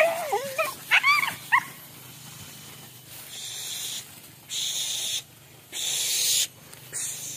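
Hunting dogs yelping and whining, a quick run of rising and falling cries in the first second and a half as they set off on a wild boar chase. After that, a high hissing buzz comes and goes in bursts of under a second.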